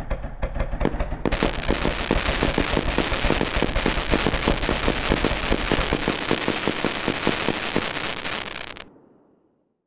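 Fireworks crackling in a dense, rapid string of pops that thickens about a second in, then fades out about nine seconds in.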